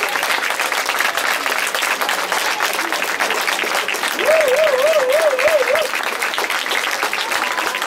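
Audience applauding steadily, many hands clapping at once. About four seconds in, a brief warbling tone rises over the clapping for a second and a half.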